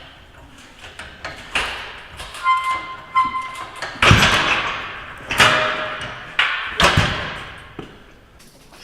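Heavy metal clanks and thuds, three loud ones about a second and a half apart each ringing out briefly, with lighter knocks between them and a short metallic ring shortly before the first loud one.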